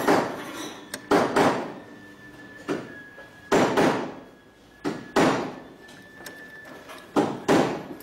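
Hard knocks and clacks of a key blade being fitted and clamped into the jig of a Condor key cutting machine, mostly in pairs, every second or two.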